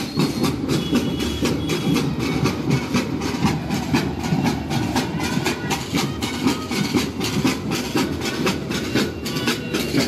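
Marching band's snare drums and bass drums beating a fast, steady rhythm, with a few brief high tones over it.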